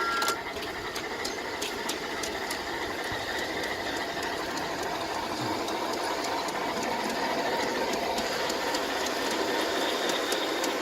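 G-scale Bachmann model locomotive running on its track: a steady motor and gear hum with frequent light clicks from the wheels on the rails.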